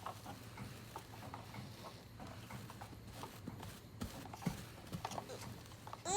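Hands handling a new toy and its packaging: faint, irregular light clicks and taps.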